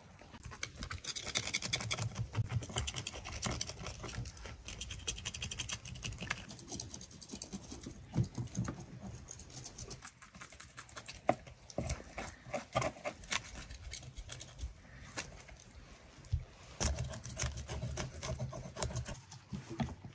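A knife scraping scales off small whole fish on a wooden board: a quick, continuous run of rasping strokes, with a few sharper knocks of the blade.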